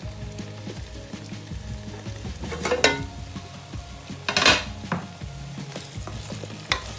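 Raw potato cubes going into a pot of onions frying in hot oil, with a steady sizzle, then a wooden spoon stirring them. Two louder ringing clunks against the pot, about three seconds and four and a half seconds in.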